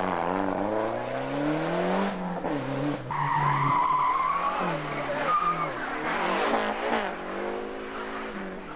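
Rally car engine revving up and dropping back repeatedly through gear changes and throttle lifts, with tyres squealing from about three seconds in until past the middle. The engine gets quieter near the end.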